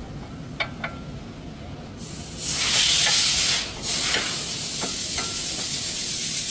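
Two light metal clinks, then a long spray hiss from a can of brake cleaner aerosol. The hiss is loudest for about a second, then carries on steadily with a few more clinks of metal parts.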